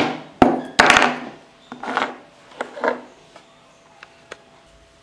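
Knocks and clatter of capacitors and other objects being handled and set down on a tabletop: the loudest few in the first second, then softer knocks and a couple of light clicks.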